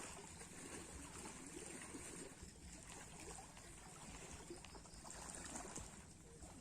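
Faint, steady wash of sea waves.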